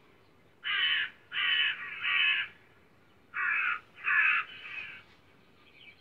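Crow cawing: two series of three caws, the second series starting about a second after the first ends.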